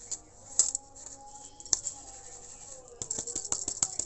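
Gram flour being sifted by hand through a round metal sieve: a soft scraping rub of flour on the mesh, with sharp taps of the sieve about half a second and nearly two seconds in. Near the end comes a quick rattle of about eight taps in a second as the sieve is knocked and shaken.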